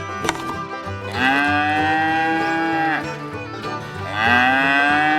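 A cow mooing twice, each moo long and held steady with a rise at the start and a drop at the end, over upbeat banjo music.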